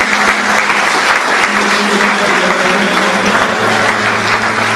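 Theatre audience applauding, a dense steady clapping that fills the hall.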